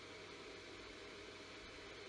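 Faint steady hiss with a faint constant hum: a small LED projector's cooling fan running.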